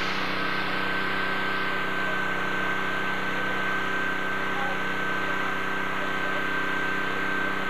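A steady mechanical hum, like a small engine running at a constant speed, with a thin high whine over it.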